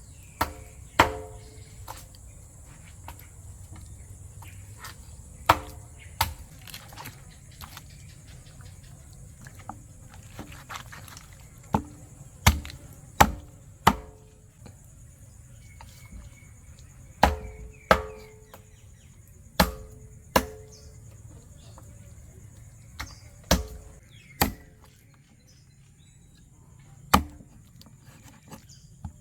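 A heavy knife chopping on a wooden board: irregular chops, often two to four in quick succession, each ringing briefly. A steady high chorus of insects buzzes throughout.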